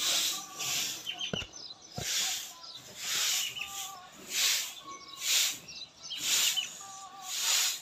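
Bristle hand broom sweeping a concrete floor, one swish about every second. Faint short bird calls can be heard between the strokes.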